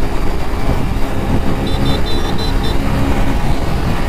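Riding noise on a Hero Splendor BS6 motorcycle: a heavy rumble of wind and road noise over the single-cylinder engine running underneath, with traffic around. About halfway there is a quick run of short high beeps.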